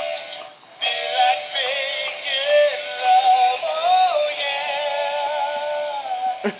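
Animated plush pig toy singing a song through its small built-in speaker, sounding thin and tinny, with a brief pause under a second in.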